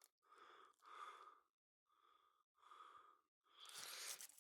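A person's faint breathing close to the microphone: a string of soft breaths in and out, with a short pause about halfway through.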